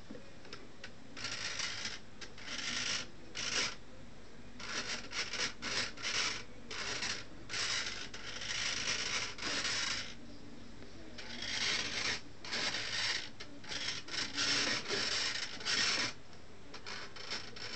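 Small hobby servo driving a foam aileron through a wire pushrod, buzzing in short bursts as it swings the control surface back and forth. The bursts come in three runs, with short pauses between.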